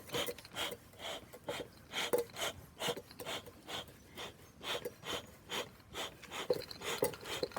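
Bee smoker's bellows pumped in a quick, steady rhythm, each squeeze a short puff of air, fanning the first small flame to build heat in the freshly lit smoker.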